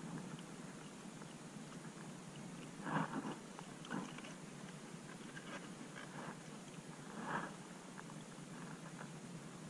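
Shallow sea water sloshing faintly around a camera held at the waterline, with three short soft splashes about three, four and seven seconds in.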